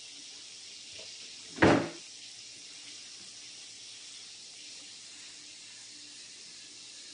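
Fish frying in hot oil: a steady sizzle, with one sharp knock about a second and a half in.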